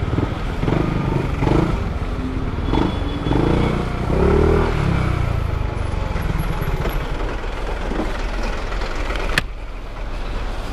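Motorcycle engine running amid road traffic noise, with a single sharp click about nine seconds in.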